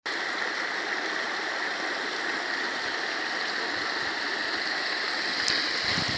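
Water pouring steadily down a sloping concrete spillway and splashing into a pond.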